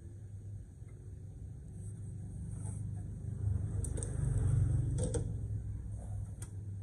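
Steady low electrical hum, with a few light metallic clicks and knocks from a screwdriver and hands on the open inverter's sheet-metal chassis, the loudest a pair of clicks about five seconds in.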